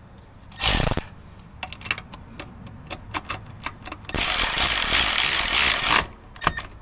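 Milwaukee cordless electric ratchet tightening the battery cable nut on a tractor starter terminal: a short burst of the motor just under a second in, a few clicks of the socket and ratchet, then a steady two-second run as the nut is snugged down, followed by a couple of clicks.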